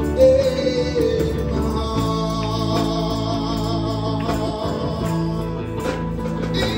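Live gospel worship music: a singer with a band, guitar and bass holding steady chords under the voice.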